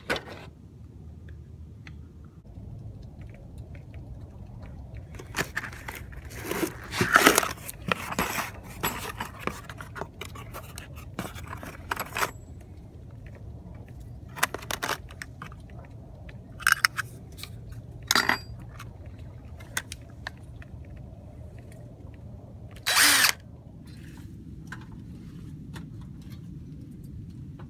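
Intermittent work noises on a metal rain gutter and its long replacement screws: scrapes, clinks and knocks, with one louder burst under a second long a few seconds before the end, over a steady low rumble.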